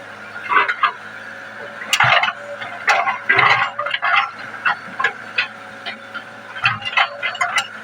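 Excavator working: its engine runs steadily while irregular clanks, knocks and scraping bursts come from the machine's bucket and tracks, several per second at times.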